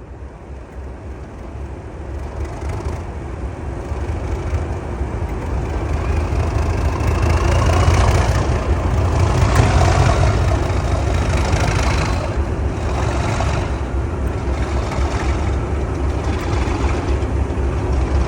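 British Rail Class 37 diesel locomotive's English Electric V12 engine running with a deep rumble that grows much louder over the first half as it works harder, with a faint whistle rising in pitch.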